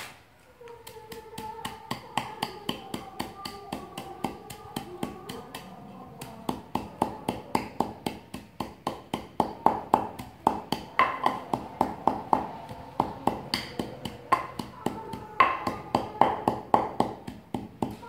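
Wooden pestle pounding chili and salt in a wooden mortar: steady, even knocks about three a second, starting about a second in.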